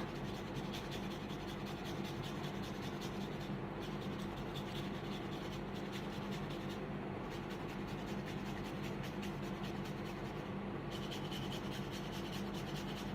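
Fresh ginger being grated on a hand grater: a steady run of quick, repeated scraping strokes, over a faint steady low hum.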